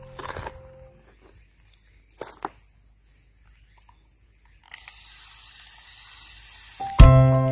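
A few soft rustles of hands working the compost soil, then a garden hose nozzle hissing for about two seconds as water is sprayed on to moisten the soil. Piano music comes in loudly near the end.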